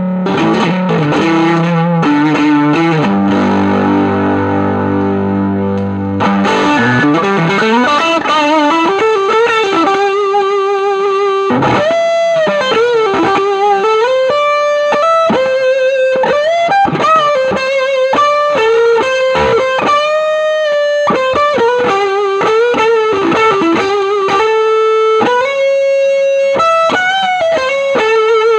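Electric guitar played through the Spruce Effects Volcanoes silicon/germanium hybrid fuzz pedal into a Milkman The Amp 100, heavily fuzzed. Sustained fuzz chords for about the first six seconds, then a single-note lead line with string bends.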